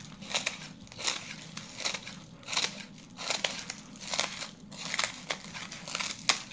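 Scissors snipping through a dry, crispy snake shed: a steady run of crisp, crackly cuts, roughly one every three-quarters of a second.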